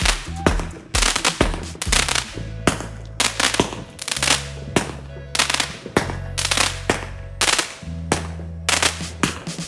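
Home fireworks going off in rapid succession, two or three sharp bangs and crackles a second, over background music with held bass notes.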